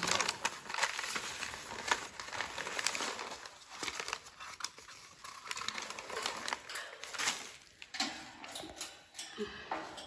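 Newspaper liners crinkling and rustling in irregular crackles as they are pulled out of a plastic bird-cage tray and rolled up.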